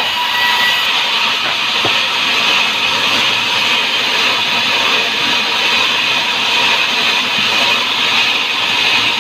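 Sawmill machinery running steadily: a loud, even hissing noise with a faint high whine, with no break or change.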